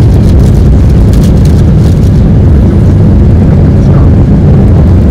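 Loud, steady low rumble inside the cabin of a Boeing 777-300ER landing.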